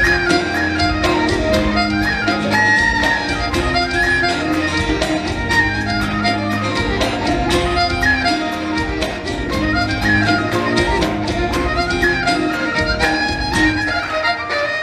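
Live Celtic band playing an instrumental tune, the fiddle carrying the melody over acoustic guitar and a steady drum beat.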